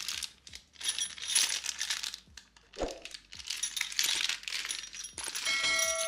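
Clear plastic bags of small metal CPU-cooler mounting hardware being handled: crinkling plastic with light metallic clinks. Near the end a ringing chime sounds and holds.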